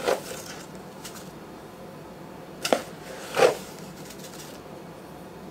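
A metal spoon clinking and scraping against glass quart canning jars as canning salt is spooned into them: a sharp clink about two and a half seconds in and a softer scrape shortly after, over a faint steady room hum.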